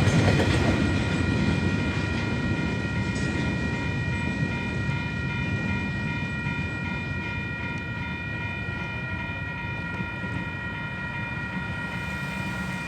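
Train wagons rolling past the level crossing, their rumble slowly fading. Over it the crossing's warning bells ring steadily, stopping just after the end.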